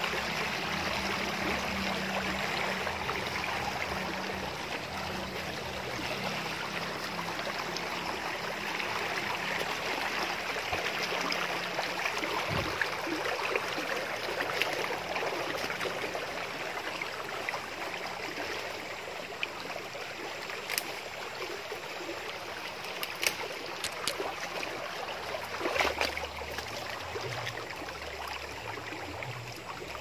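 A shallow stream rushing steadily over stones, a little quieter after the first few seconds. A few sharp clicks stand out in the second half.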